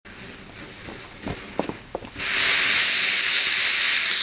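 Catherine wheel firework: a faint fizz with a few sharp crackles, then about two seconds in a loud steady hiss of spraying sparks.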